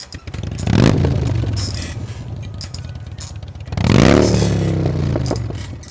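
A motor revving up twice, the first rev about a second in and the second about four seconds in, each swelling quickly and then fading away slowly.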